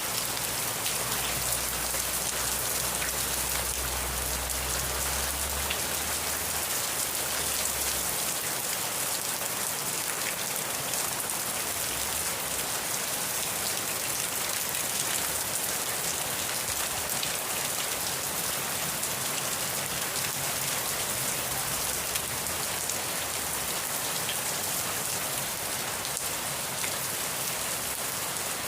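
Steady, heavy rain falling, an even dense hiss of drops without a break. A faint low hum sits underneath for the first several seconds.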